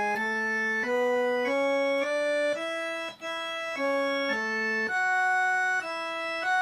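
Electronic keyboard with a sustained, organ-like voice playing a forró solo melody slowly, one note at a time, about two notes a second, the line stepping up and down with a brief break about three seconds in.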